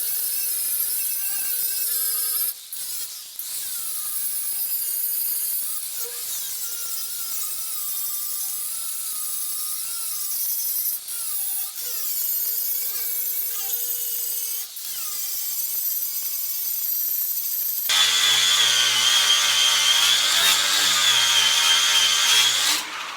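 A grinder grinding down the weld on a steel panel, knocking off the high spots to flatten it: a high, wavering whine as the disc bears on the metal, with a few brief breaks. Near the end it turns louder and rougher for a few seconds, then cuts off.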